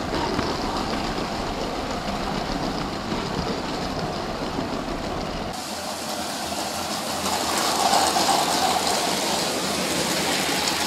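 LEGO City toy trains running on plastic track: the electric motor whirring and the wheels rattling over the track. It is first heard close up from a camera riding on the train; after a cut about halfway through, it comes from trackside as a train draws near and gets louder.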